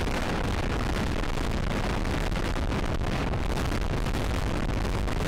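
Wind buffeting a microphone held out of a moving passenger train's window: a loud, steady rush with heavy low thumping, with the train's running noise beneath.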